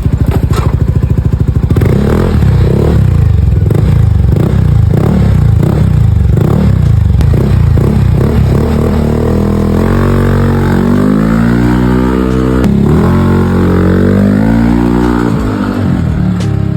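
Yamaha Aerox V2 scooter's single-cylinder engine breathing through a Cardinals Racing aftermarket exhaust on a ride test: it runs at low revs at first, then accelerates twice in the second half, its note rising each time and dropping in between.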